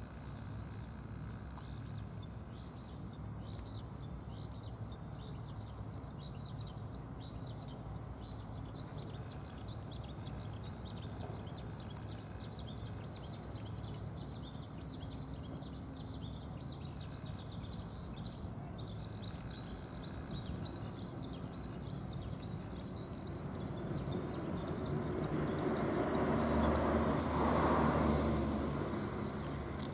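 Outdoor ambience: many small birds chirping continuously in the background over a low steady rumble, with a vehicle passing that swells and fades over a few seconds near the end.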